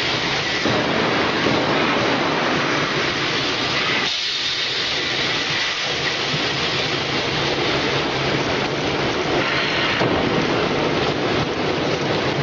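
Brush roller vegetable washing machine running, its rotating brushes and water spray giving a steady rushing noise that shifts in tone a couple of times.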